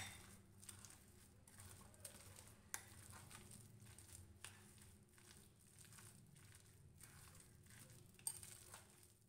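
Faint, irregular scraping and clicking of a spoon against a glass bowl as a thick, wet batter of grated potato, egg white and flour is stirred, with a few sharper clinks.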